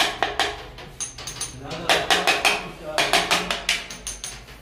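Glazed ceramic wall tiles tapped with a short metal tube in quick runs of sharp clicks, some with a faint metallic ring. It is a hollow-tile test: a drummy, rattling answer marks an air gap where the adhesive or mortar does not fully cover the back of the tile.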